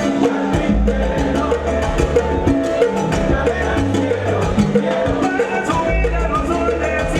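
Salsa music: a band playing with a steady percussion beat over a repeating bass line.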